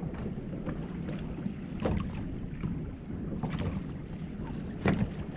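Choppy water slapping against a small boat's hull, with wind on the microphone and a few light clicks or knocks.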